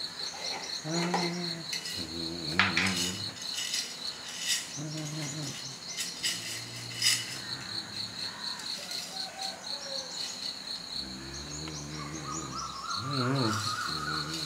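Insects chirping in a steady, fast pulsing high trill, with a few light clinks of a spoon against glass jars.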